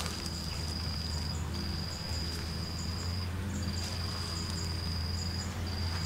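Insects trilling: a steady, high, single-pitched trill in long stretches broken by short gaps, with fainter chirps above it, over a steady low hum.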